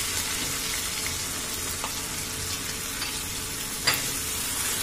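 Browned onions and freshly added powdered spices frying in hot oil in a kadhai, a steady sizzling hiss. A single sharp tap about four seconds in.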